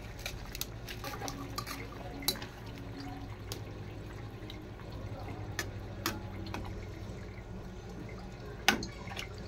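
A spoon stirring grated santol in coconut milk in a stainless steel pan: wet sloshing with scattered clicks and scrapes of the utensil on the pan, and one sharper knock near the end, over a steady low hum.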